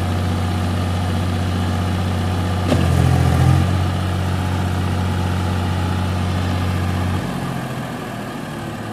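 Swaraj 834 XM tractor's three-cylinder diesel engine running steadily, with a knock and a brief rise in revs about three seconds in, then throttled back to a quieter idle about seven seconds in.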